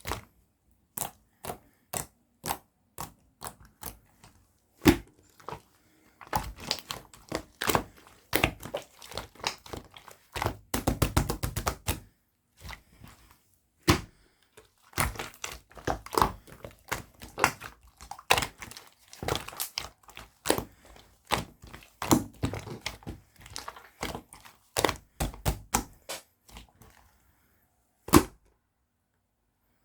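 Slime being squeezed, poked and folded by hand, giving a long run of sharp clicky pops and crackles with short pauses. About ten seconds in there is a quick rattling run of clicks, and a few louder single knocks stand out around five seconds in and near the end.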